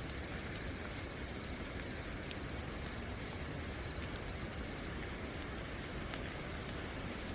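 Steady night rain falling, with a few sharp drips, and crickets chirping in a steady high trill underneath.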